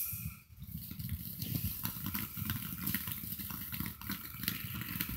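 Fireworks crackling: a dense, rapid patter of small pops, with a low rumble underneath.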